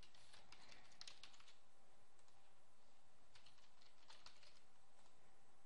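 Faint computer keyboard typing: a short run of keystrokes near the start, and another run of clicks about three seconds in.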